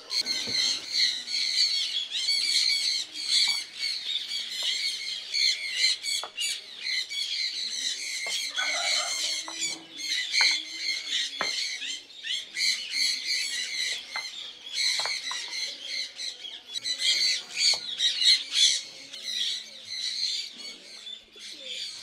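Many birds chirping and squawking together in a dense, continuous chorus, with scattered short clicks and wing flaps.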